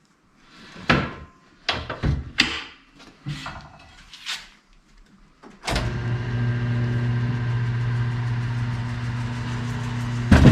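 Clanks and knocks of a tire being worked onto a rim on a tire-changer machine, then about five and a half seconds in the machine's electric turntable motor starts and runs with a steady hum for about five seconds, stopping with a sharp knock.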